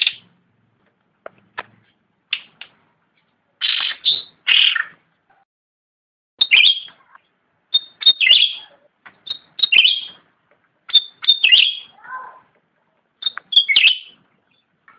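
Cucak rante songbird singing: a run of short, loud phrases, each a few sharp high notes running into a falling note, repeated with brief silent gaps. A lower call comes near the end.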